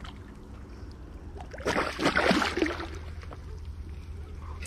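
Water splashing and lapping against shoreline rocks as a large hooked snook is drawn in at the surface, with a louder burst of splashing about two seconds in.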